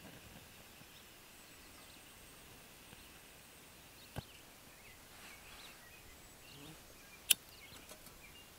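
Quiet outdoor ambience with faint bird chirps, broken by a soft knock about four seconds in and a single sharp click about seven seconds in, from camp-stove gear being handled while an Esbit fuel tablet is readied for lighting.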